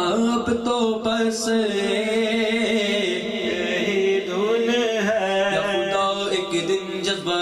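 A man singing an Urdu naat solo, drawing out long held notes that bend and waver in pitch without clear words.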